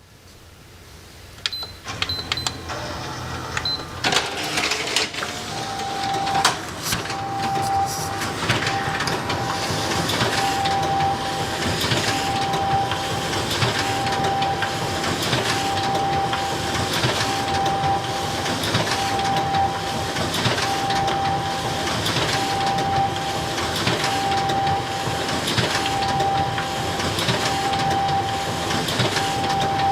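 Xerox photocopier starting up and running copies. A few short high beeps come in the first seconds, then the machine starts about four seconds in and settles into a steady rhythmic cycle, with a whirring tone that pulses about once every second and three-quarters as sheets feed through.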